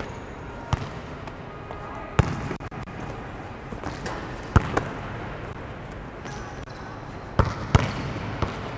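Basketballs bouncing on a hard indoor court floor in a large gym: about seven sharp single thuds, spaced irregularly and some coming in quick pairs.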